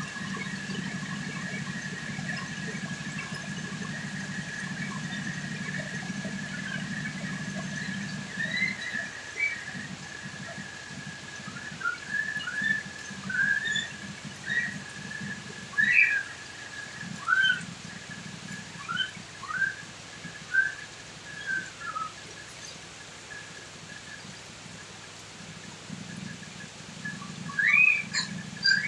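Heavy rain falling steadily on the roof and yard. A steady high whistle-like tone sounds for about the first ten seconds, then a run of short, loud chirping calls, mostly quick falling glides, comes in bunches through the middle and again near the end.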